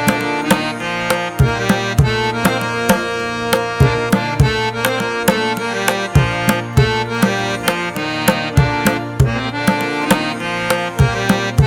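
Background music: sustained melodic instrument tones over a steady hand-drum beat, about two strikes a second.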